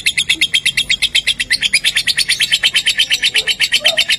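Lovebird giving its long 'ngekek' chatter: a fast, unbroken string of sharp, high notes, about a dozen a second.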